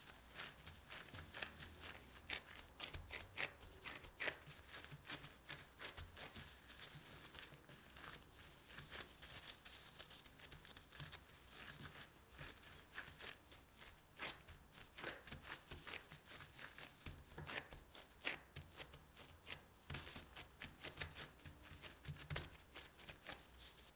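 Disposable gloves rustling and crinkling as hands press and pat soft scone dough into a flat round, with many faint, quick, irregular clicks and soft pats.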